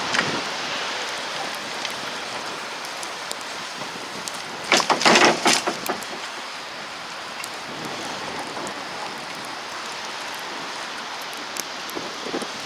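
Steady hiss of outdoor noise in a wet snowstorm, with a loud crackling burst lasting about a second, about five seconds in.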